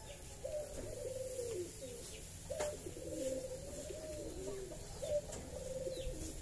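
A bird cooing in repeated low, warbling phrases, one after another.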